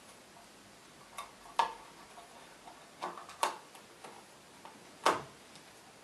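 Handling clicks and small knocks as a plastic clip is fitted onto a solid-state drive and the drive is set into a laptop's drive bay: about five short, sharp clicks, the loudest about a second and a half, three and a half and five seconds in.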